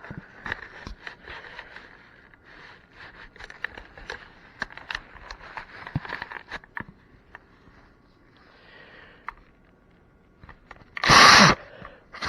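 Faint rustling and light clicks of something being handled, then near the end two short, loud rushes of breath about a second apart.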